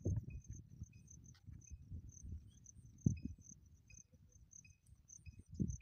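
Insects chirping steadily: a high chirp repeating about every half second, over low gusts of wind buffeting the microphone, the strongest gust about three seconds in.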